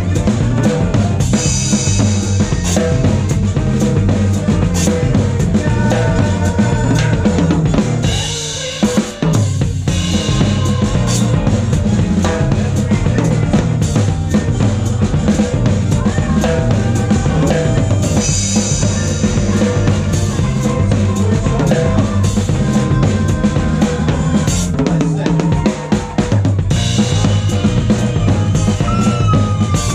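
Drum kit played hard with sticks in a live band: snare, bass drum and cymbals keep a busy beat under a stepping bass line and guitar, with the drums loudest. The band breaks off for a moment about eight seconds in.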